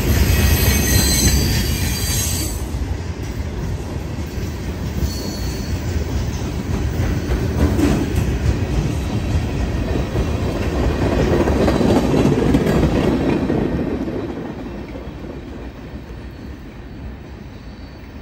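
Steel open-top hopper cars of a freight train rolling past, with a steady low rumble from the wheels on the rails. Wheels squeal high for the first couple of seconds. The rumble fades away over the last few seconds as the end of the train pulls away.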